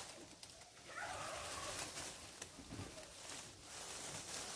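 Leafy calamansi branches rustling as they are handled, with a faint bird call about a second in.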